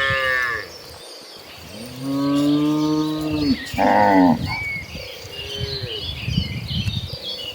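A herd of cattle mooing, several cows calling in turn. One long, deep moo comes about two seconds in, with shorter, higher calls around it.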